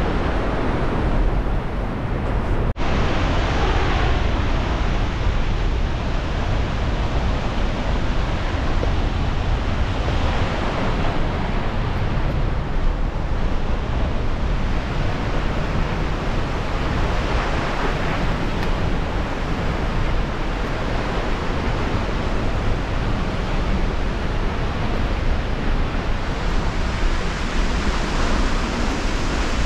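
Steady roar of a large waterfall, an even rush of falling water, with wind buffeting the microphone. The sound drops out for an instant about three seconds in.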